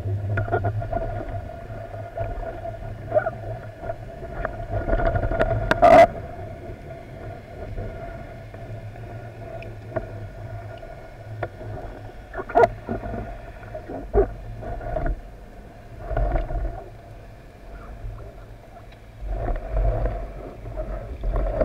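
Underwater sound picked up through a camera housing on a speargun: a steady hum over a low rumble, broken by several sharp clicks and knocks, the loudest about six seconds in.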